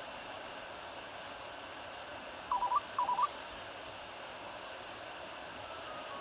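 Nokia N8-00 ringtone: two short high calls about half a second apart, each dipping in pitch and rising again, over a steady hiss.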